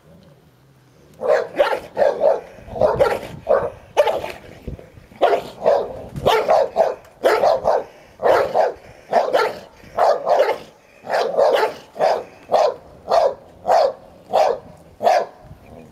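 A dog barking over and over in play, about two short barks a second, some in quick pairs. The barking starts about a second in and stops shortly before the end, while the dogs face off in a play-bow over a toy.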